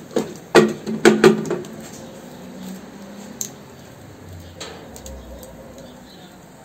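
A spoon knocking against a metal cooking pot, about three sharp clanks in the first second and a half, then only a faint steady background.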